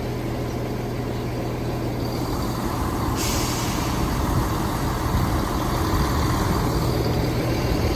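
Class 168 diesel multiple units running with a steady low diesel drone. About three seconds in, a short sharp hiss of air, typical of the train's air brakes or pneumatics. The rumble grows slowly louder toward the end.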